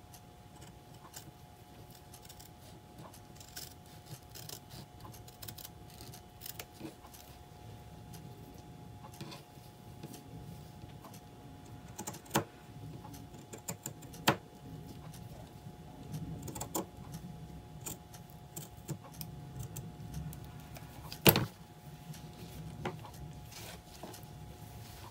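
Scissors cutting and handling painted fabric: scattered snips and clicks with the rustle of cloth, a few much sharper clicks, the loudest near the end, over a faint steady hum.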